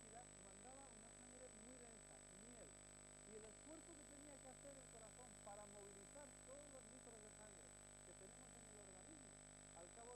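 Near silence on a VHS tape recording: faint hiss and a steady high-pitched whine, with faint wavering tones underneath.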